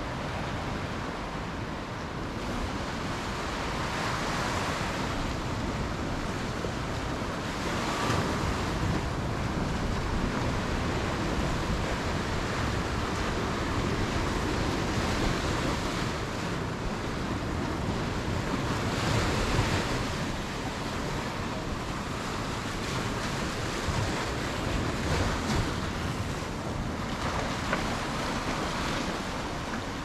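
East Sea surf breaking and washing onto a sandy beach, a steady rush that swells several times as waves come in, with wind blowing on the microphone.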